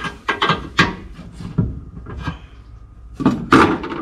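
Irregular metal clicks and knocks from a wrench wrapped in a shop rag, tightening aluminium AN fittings on radiator coolant lines. The loudest knocks come near the end.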